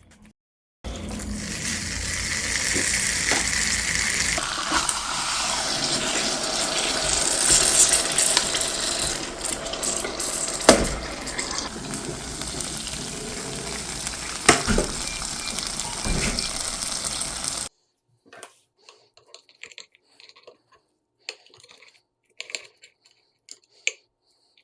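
Jajangmyeon sizzling in a hot waffle iron: a steady loud sizzle with a few sharp clicks. It cuts off abruptly about two-thirds of the way through, leaving scattered light clicks and taps.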